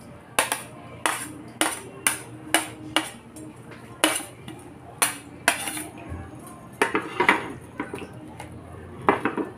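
A metal utensil clinking and scraping against a plate as it knocks chopped chilies and string beans into a wok, then a spatula clinking against the metal wok while stirring. The clinks come sharp and separate, about two a second at first, then in quick clusters about seven and nine seconds in.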